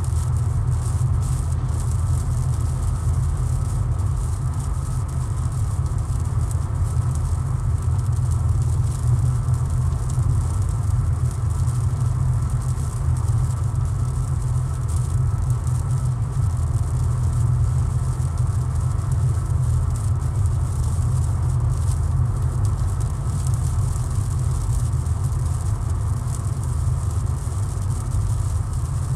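Car driving on a highway in the rain, heard from inside the cabin: a steady low road and engine rumble with the hiss of tyres on wet road, and fine rain ticks against the car.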